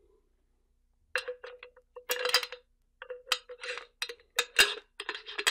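Stock Dillon powder bar being slid in and out of a Dillon 550B powder measure by hand: a series of metallic clicks, clinks and short scrapes with a slight ring, starting about a second in, as the bar's fit in the measure is felt out.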